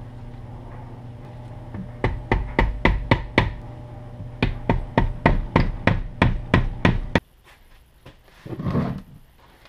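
A hammer tapping a punch on an old electric winch motor: about seventeen sharp metal blows at three to four a second, in two runs with a short pause between them. A low steady hum sits under the first two seconds, and a brief rubbing sound follows near the end.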